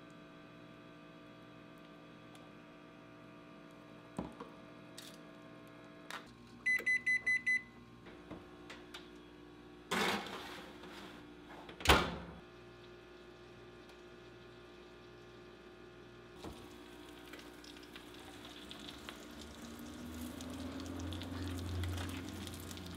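Five quick beeps from the oven's control panel, then the oven door opening about ten seconds in and shutting with a loud thunk about two seconds later. Near the end a sizzle and hum slowly rise as the tray of roasted sausage comes out of the hot oven.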